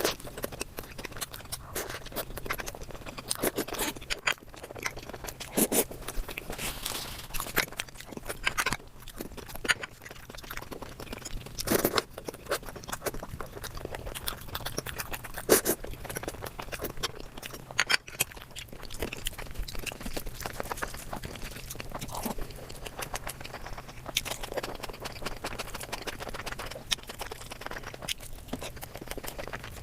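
Close-miked eating: chewing and crunching with irregular, sharp clicks and crackles of food in the mouth, a few louder crunches standing out.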